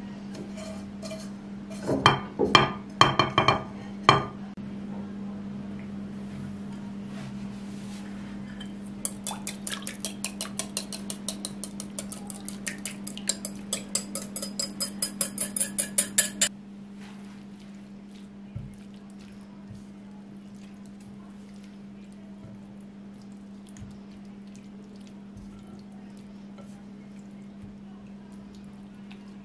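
A spatula knocks against a frying pan and a glass baking dish several times as sautéed vegetables are scraped out. Later comes a quick run of light clinks, about four a second for several seconds, as an egg-and-milk sauce is poured from a glass bowl with a utensil rattling against the glass. After that there is only faint scraping as the mixture is spread, over a steady low hum.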